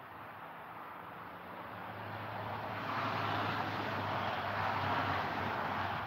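A motor vehicle passing by: a steady rush of tyre and engine noise with a low hum grows louder over the first few seconds, is loudest about halfway through, and begins to fade near the end.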